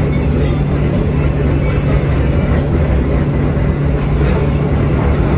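Kolkata Metro train running along an elevated track, heard on board: a steady loud rumble of wheels and running gear with a constant low hum.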